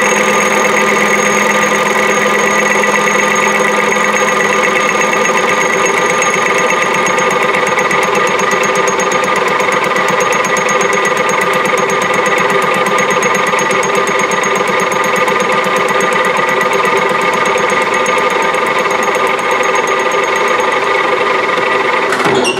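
Metal lathe running steadily as a tool bit faces a cast aluminum blank: a constant mechanical hum with several steady pitches, cutting off abruptly near the end.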